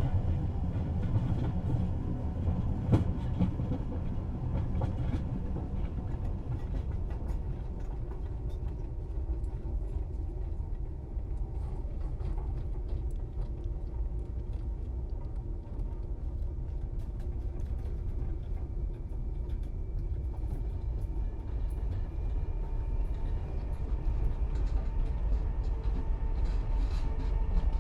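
Inside a moving commuter train carriage: a steady low rumble with scattered light clicks and rattles. The running sound grows a little louder near the end.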